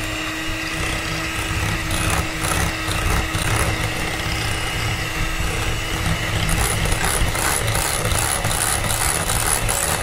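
Electric hand mixer running steadily at one speed, its beaters whipping dalgona coffee (instant coffee, sugar and water) into a thick foam in a glass bowl. Rapid clicks and rattles from the beaters against the glass come thicker in the second half.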